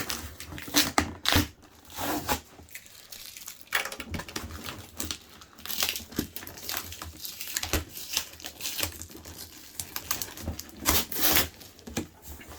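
Shipping box being opened by hand: irregular tearing and crinkling of its packaging, with scattered scrapes and knocks.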